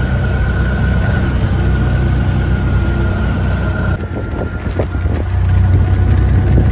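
Auto-rickshaw (tuk-tuk) engine running on the move, heard from inside the open passenger cabin: a steady low rumble, with a thin high whine over it for the first four seconds or so.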